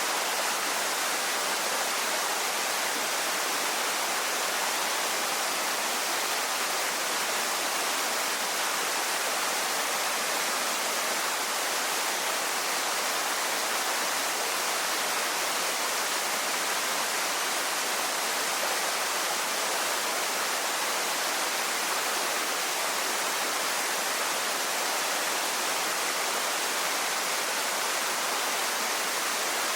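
Waterfall falling and splashing in a steady, unbroken rush of white water.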